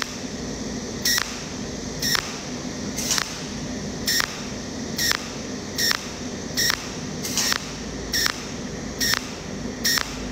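A cold welding machine spot-welding stranded copper wire with its tungsten torch: about a dozen short weld pulses, roughly one a second, over a steady hiss.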